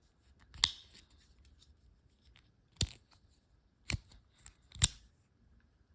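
Sharp clicks and snaps of small hard parts being handled: four loud ones with fainter ticks between.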